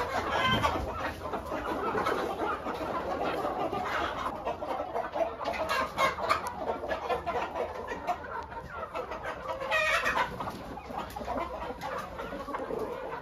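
A flock of chickens clucking continuously, many short calls overlapping, with one louder call about ten seconds in.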